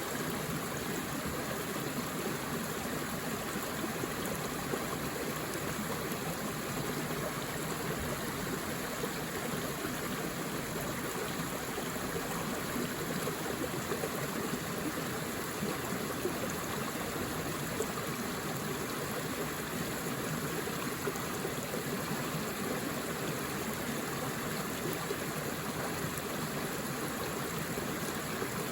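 Forest river flowing: a steady rush of running water over rocks, with no change.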